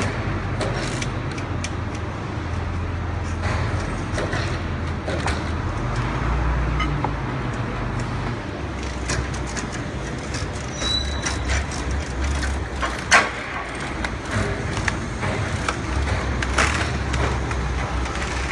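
Clicks and knocks of a metal lever tool being worked against wooden glass crates, over a steady low rumble, with one sharp loud strike about two-thirds of the way through.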